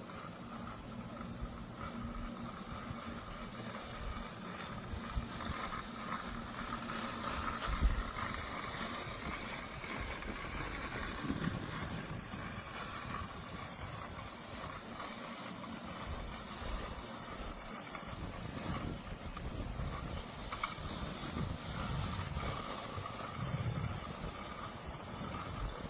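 Mammotion Yuka Mini robotic lawn mower running, a steady motor whine over outdoor noise.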